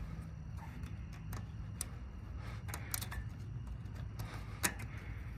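Scattered light clicks and taps of jumper wires and an alligator clip being handled at a mower's starter solenoid, while the hot-wire connection is checked. A low steady hum runs underneath.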